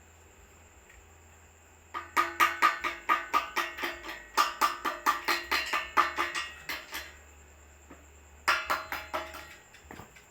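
Rapid hammer strikes on steel, about four a second, each with a short metallic ring: a run of about five seconds, then a shorter burst near the end.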